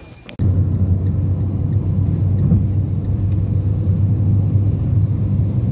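Steady low rumble of road and engine noise heard inside a car driving at speed on a motorway, starting abruptly just under half a second in.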